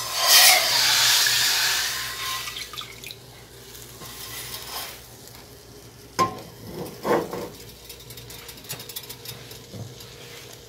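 Hot non-stick frying pan hissing as it is cooled in a bowl of cold water between batches of baghrir, a loud sizzle that fades over about two seconds. A few sharp knocks of the pan against metal follow about six and seven seconds in.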